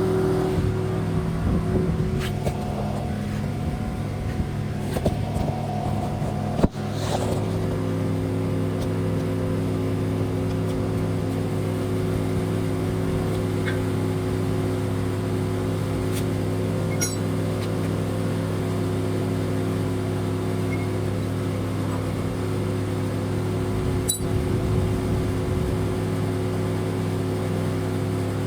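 An engine or motor running steadily with an even hum. One sharp click comes about seven seconds in, where the pitch of the hum changes.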